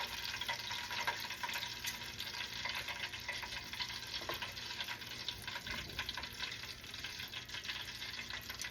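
Battered pork chop deep-frying in hot grease in a cast-iron Dutch oven: a steady sizzle full of fine crackles.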